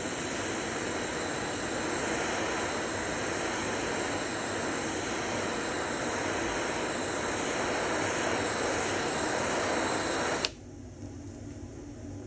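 Lighter flame hissing steadily, then cut off abruptly about ten and a half seconds in, leaving a much quieter background.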